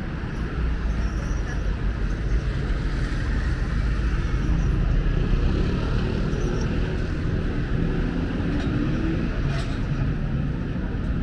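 Steady city street traffic noise, with cars running past, swelling a little midway.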